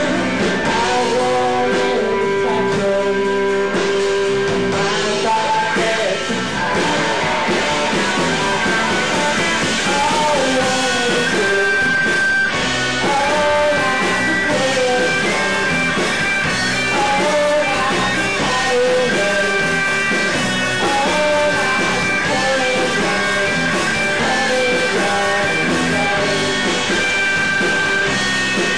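Live rock band playing: electric guitars, bass and drums, with a male lead singer singing over them.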